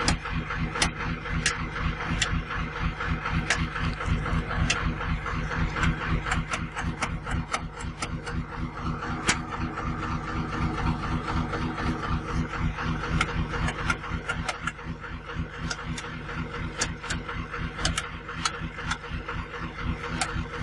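Diesel engine of a Kato 25-ton rough-terrain crane running steadily, with scattered sharp clicks over the steady engine note.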